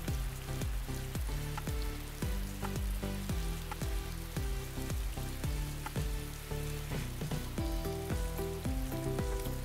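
Background music of low sustained notes, a new note or chord about twice a second, over a steady crackling hiss.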